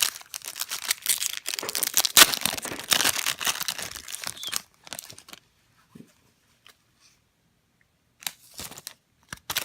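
A foil wrapper of a pack of baseball cards being torn open and crinkled for about four and a half seconds, followed by a few faint rustles and taps of the cards being handled.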